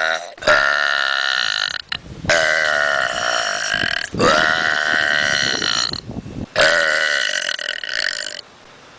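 A person burping over and over: the tail of one burp, then four long, drawn-out burps, each held for about one and a half to two seconds with short gaps between them.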